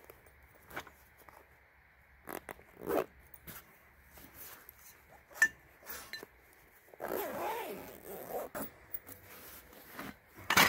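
A Hi-Lift jack's soft carry bag being zipped and packed: zipper pulls and fabric rustling, with scattered light clicks and knocks as the jack handle is slid in. A stretch of louder rustling comes past the middle, and a sharp knock near the end.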